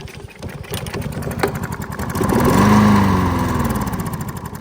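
Craftsman push mower's 5.5 hp Briggs & Stratton engine cranked on a shot of starter fluid. It turns over for about two seconds, fires and runs briefly, then winds down and dies. Catching only on the ether and stalling is the sign of a fuel problem, which the owner puts down to the carburetor.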